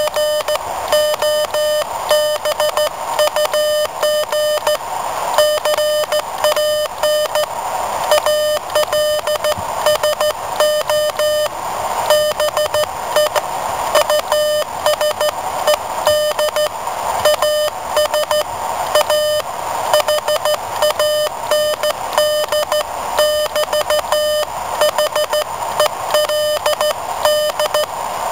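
Morse code sent by hand on a semiautomatic "bug" key: a steady mid-pitched beep keyed on and off in fast dots and dashes, with a hiss behind it.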